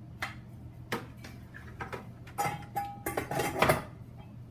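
Stainless-steel wall-mount chemical mixing station clanking and rattling as it is handled and hung back onto its wall screws. A few separate knocks come first, then a denser, louder run of clatter in the second half with a brief ringing tone.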